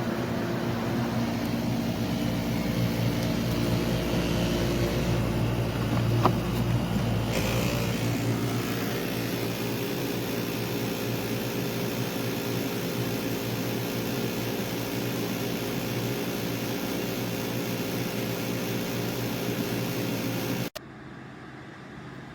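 SereneLife 12,000 BTU portable air conditioner running in cool mode on high fan, a steady hum of several tones under a whooshing airflow. Near the end the sound cuts off abruptly to a much quieter steady hiss.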